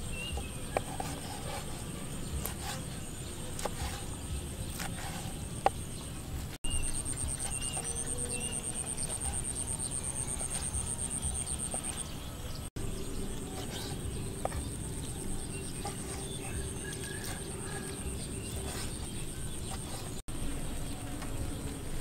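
A knife chopping now and then on a wooden cutting board, a few sharp strikes loudest near the start and about six seconds in, over an outdoor background of insects buzzing in a high steady drone and birds chirping briefly.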